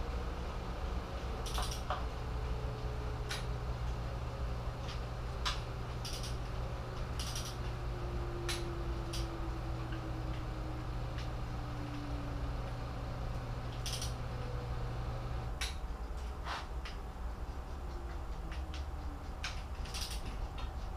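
Click-type torque wrench clicking off as the oil pan bolts of a 3.7L Jeep engine reach 11 ft-lb: short sharp clicks every one to few seconds, with a little metal tool handling between them. A steady low hum runs underneath and stops about two-thirds of the way through.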